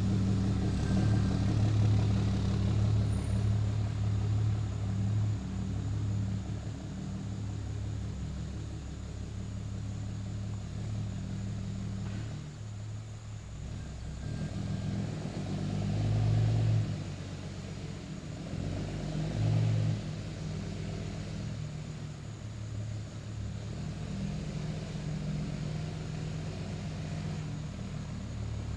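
A road vehicle driving: steady engine hum and road noise, swelling louder twice in the second half.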